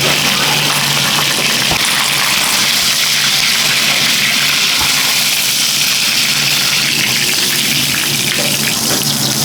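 Water running steadily and hard from a kitchen tap, an even hissing rush, with a faint steady hum beneath it.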